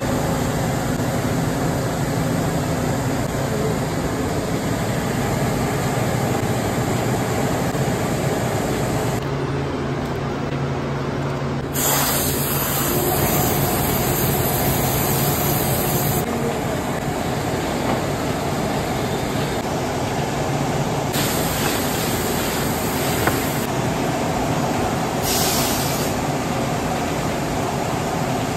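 Steady drone of workshop machinery. A compressed-air spray gun hisses over it in bursts: a long burst of about four seconds roughly twelve seconds in, then shorter bursts around twenty-one and twenty-five seconds in.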